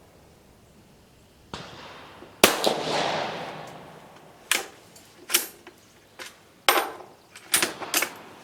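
A shot from an Italian Vetterli 1870/87/15 bolt-action rifle in 6.5 mm Carcano, fired with a light, low-pressure cast-bullet load: one loud crack about two and a half seconds in, ringing away over a second or so, with a fainter crack about a second before it. Then the bolt is worked, a series of short metallic clacks.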